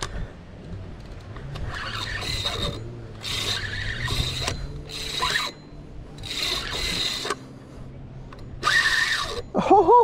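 Penn Pursuit III spinning reel being cranked to retrieve line, its gears whirring in six short bursts of reeling with brief pauses between.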